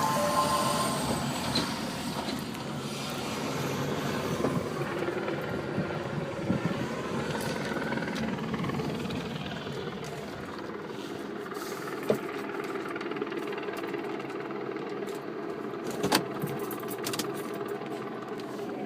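Steady motor-vehicle noise from passing traffic, with two short sharp clicks about twelve and sixteen seconds in.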